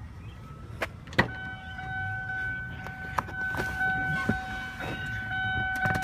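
2002 Ford Thunderbird's V8 and road noise, heard from inside the car on a test drive: a low steady rumble, two clicks about a second in, then a steady high tone that holds for the rest.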